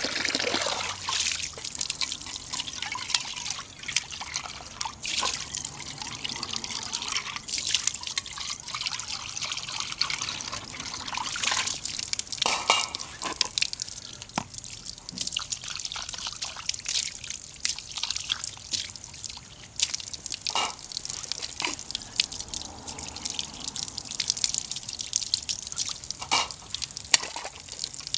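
A pot of oden broth simmering over a wood-fired stove, bubbling with many small irregular pops.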